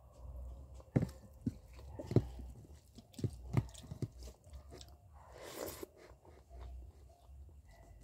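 Close-up mouth sounds of a person chewing a hand-fed mouthful of rice and fish curry, with wet smacks and clicks, most of them in the first four seconds, and a brief breathy rush a little past the middle.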